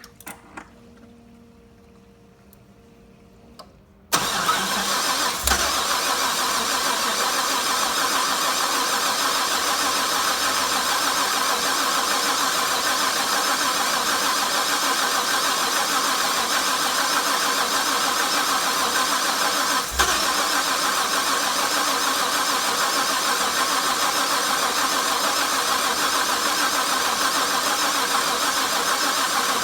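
Harrop-supercharged LS1 V8 being cranked on the starter without catching, a long steady crank that starts suddenly about four seconds in after a faint hum and a few clicks, with a brief dip about 20 seconds in. It is a no-start: the engine won't fire even though the fuel rail holds 60 psi while cranking.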